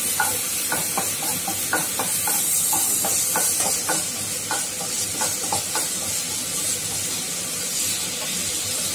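Shredded cabbage, carrot, onion and green chilli sizzling in oil in a non-stick kadai, with ginger-garlic paste just added, while a spatula scrapes and stirs them. A steady frying hiss runs under quick scraping strokes that come often for the first six seconds or so, then thin out.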